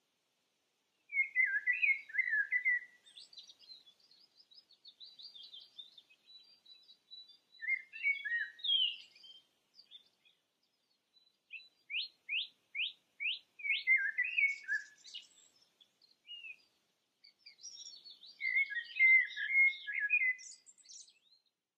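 Songbirds singing in separate short phrases, some warbled and one a quick run of about half a dozen downward-sweeping notes, with gaps between.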